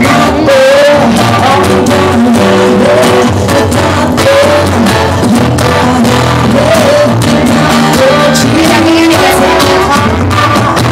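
Background music: a song with a sung melody over instruments.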